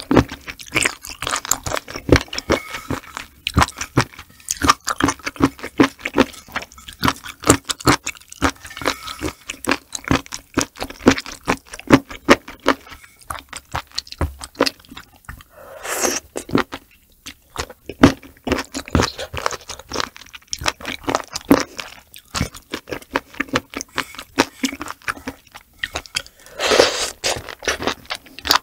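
Close-miked, wet chewing and mouth clicks of someone eating raw sea cucumber with its roe and innards. Two longer hissing sounds, about midway and near the end.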